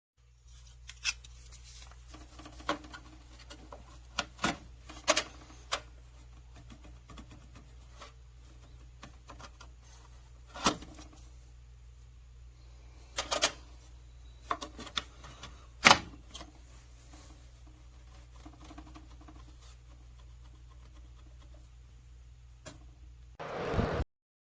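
Scattered sharp clicks and knocks, a dozen or so at uneven intervals, over a steady low hum, with a short burst of noise just before the end.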